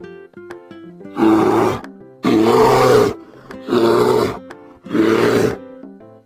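A bear roaring four times, each roar under a second long, over light background music.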